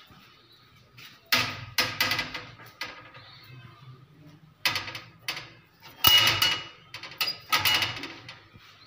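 Metal clanks and rattles from a wire-mesh bird cage's small door and latch being handled: several sharp knocks with a brief ring, in clusters, loudest about six seconds in.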